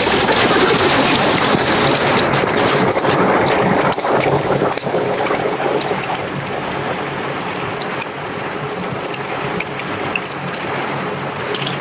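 Steady, loud rush and splash of falling water at a waterfall that is partly iced over.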